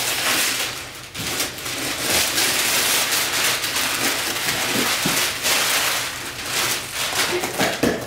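Gift wrapping paper tearing and crinkling as it is pulled off a cardboard box, a continuous crackly rustle with a short lull about a second in.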